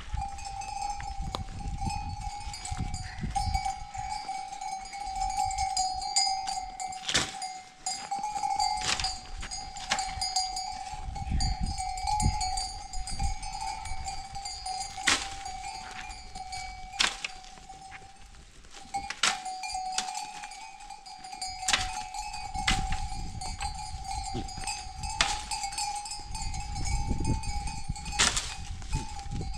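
Bells on a flock of grazing sheep ringing on and on, their jangle blending into one wavering ring that drops out briefly about two-thirds of the way in. Sharp knocks come every two seconds or so, from a long stick beating oak branches to bring leaves down for the sheep.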